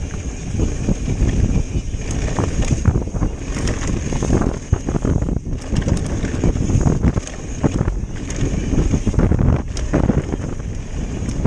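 Wind buffeting the microphone as a mountain bike descends a dirt trail at speed, over tyres rolling on dirt, with frequent short clicks and knocks as the bike goes over bumps.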